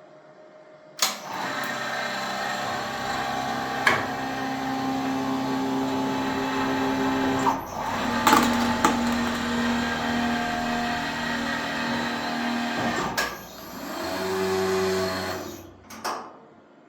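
Desktop plastic injection molding machine running through a molding cycle: a motor runs with a steady hum that shifts in pitch twice, with several sharp clicks and knocks. It starts with a click about a second in and stops shortly before the end.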